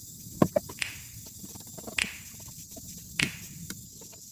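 Kitchen handling sounds: a handful of sharp clicks and knocks at irregular intervals, the way utensils and containers are set down and moved, over a faint steady hiss.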